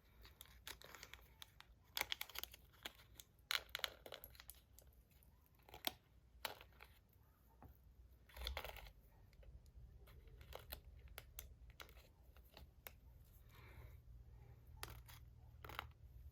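Faint, scattered clicks and brief rustles as small magnet balls are handled and fitted into an EDC fidget slider's sandwich piece.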